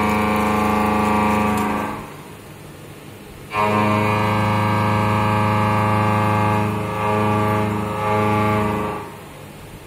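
Indexable carbide-insert milling cutter on a CNC vertical machining centre cutting metal, a loud steady pitched hum with many overtones while it is in the cut. The cut stops about two seconds in, a new pass starts about a second and a half later, dips briefly near seven seconds and ends about nine seconds in.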